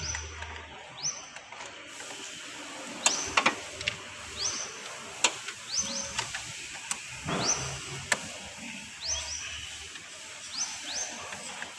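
A few sharp metallic clicks and taps of a ring spanner working the car battery's negative terminal clamp loose, to disconnect the battery for an ECU reset. A short, high rising chirp repeats in the background about once a second.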